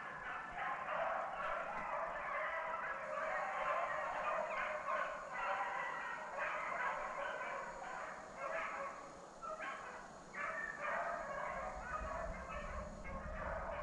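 A pack of beagles baying together, many voices overlapping continuously: hounds in full cry running a rabbit.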